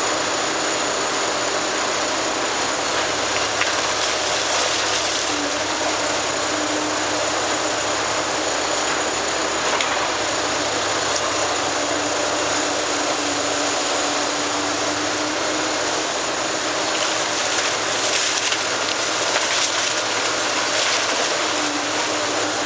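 Liebherr 944 demolition excavator working: its diesel engine and hydraulics running steadily, with a whine that rises in and out as the boom works, and a few brief cracks of breaking masonry and debris.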